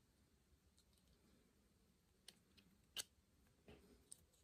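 Faint, scattered clicks of small metal parts as a new float hinge pin is worked into an outboard carburetor, the sharpest click about three seconds in; otherwise near silence.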